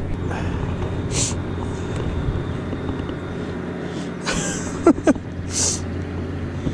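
Steady low hum of a boat motor, with three short hissing bursts over it.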